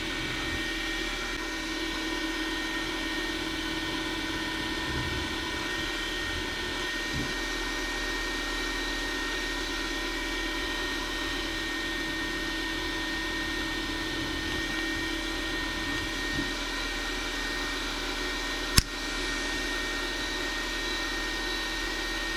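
Machine spindle running steadily with a constant motor whine while a center drill spots a hole in an aluminium part. One sharp click comes about 19 s in.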